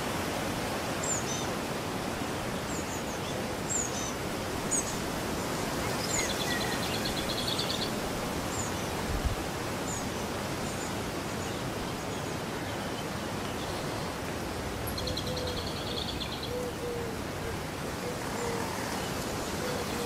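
Wild songbirds singing over a steady rushing background: scattered short high chirps, a trilled phrase about six seconds in and again about fifteen seconds in, and a run of low soft notes in the last few seconds.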